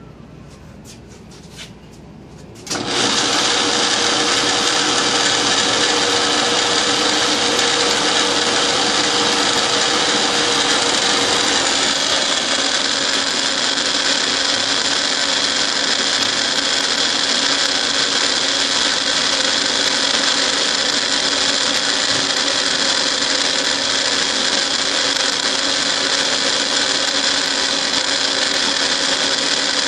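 Horizontal milling machine starting up about three seconds in, then running steadily with a whine of several pitches as its cutter mills a helical worm on a workpiece turned by a dividing head.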